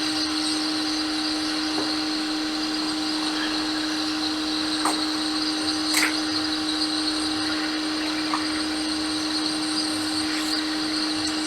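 Hot-air rework gun blowing steadily: an even fan hum with a constant whine and airflow hiss, while liquid-damaged capacitors are heated off a MacBook logic board. A few faint clicks from tweezers on the board.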